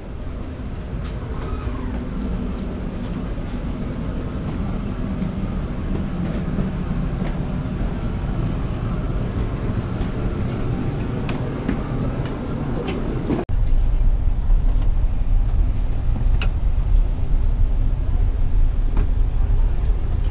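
Steady low rumble of an Airbus A380's interior ambient noise, with a few light clicks. About two-thirds of the way through it cuts abruptly to a louder, deeper rumble on the flight deck.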